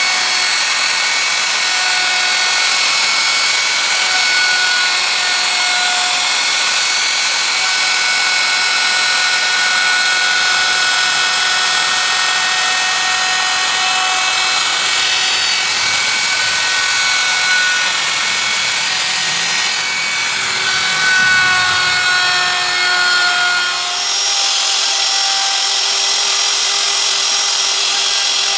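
Handheld electric plunge router running at full speed, its bit cutting a carved flower pattern into a board: a steady high whine with the hiss of cutting. The pitch shifts a little as the bit takes load, and changes about 24 s in.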